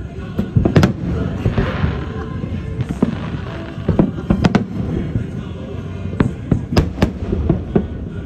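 Aerial fireworks exploding: a string of sharp bangs at uneven intervals, some in quick pairs, with a crackling hiss about one and a half seconds in.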